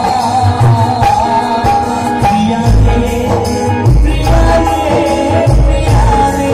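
Live Bengali baul song: a male singer over keyboard and folk drums, with deep drum strokes coming in about halfway through.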